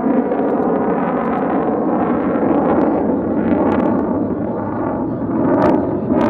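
Steady jet noise from an EA-18G Growler's two General Electric F414 turbofans as the jet flies past overhead. The noise swells slightly near the end, with a few sharp pops.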